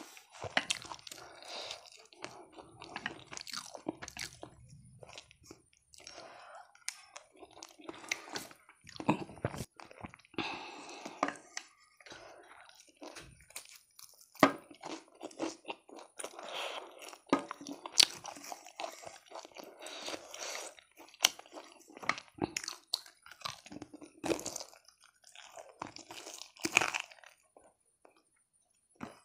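Close-miked crunching and chewing of fried chicken: irregular crisp bites and chewing with short pauses between mouthfuls.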